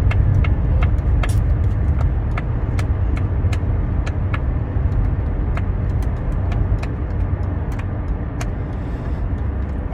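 Silicone push-pop fidget toy in a rainbow unicorn shape being popped bubble by bubble on its 'satisfying' side: a string of sharp little pops, about three a second, over a steady low rumble.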